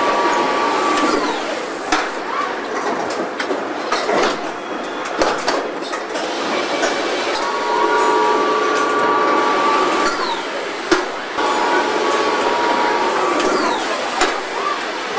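Car assembly line machinery running: a steady mechanical din in which electric drives whine for a second or two and wind down in pitch as they stop, three times, with sharp metallic knocks and clanks in between.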